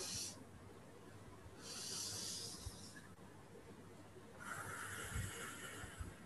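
A woman's slow, deep breathing during a belly-breathing exercise. She draws a breath in about one and a half seconds in, then after a pause blows a longer breath out through the mouth about four and a half seconds in.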